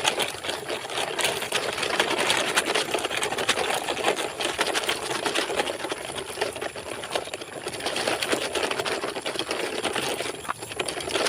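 Small electric motor and plastic gearbox of a toy truck whirring steadily with a fast, fine clatter as it drives.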